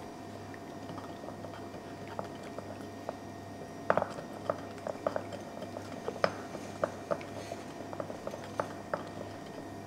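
A pot of chickpeas simmering after the onion and its oil have gone in, bubbling with scattered irregular pops from about four seconds in, the first one the loudest, over a steady low hum.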